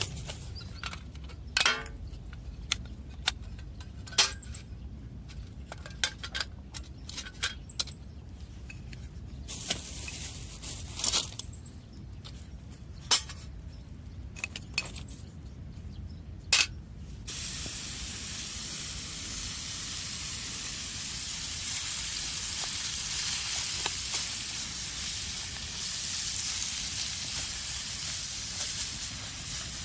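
Scattered sharp clinks and taps, like metal gear being handled and set down. About seventeen seconds in, a steady hiss starts abruptly and carries on.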